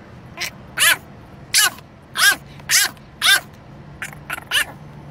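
French bulldog puppy yelping in a string of short, high-pitched calls that rise and fall in pitch, about two a second, turning fainter near the end.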